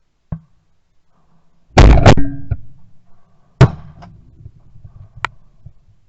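Two shotgun shots fired close to the microphone, a loud one about two seconds in and a sharper one under two seconds later, with a couple of smaller clicks around them.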